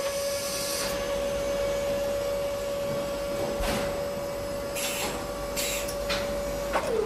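Designed intro sound effects: a steady machine-like hum held at one pitch, crossed by several short whooshes, with the hum sliding down in pitch near the end like a motor winding down.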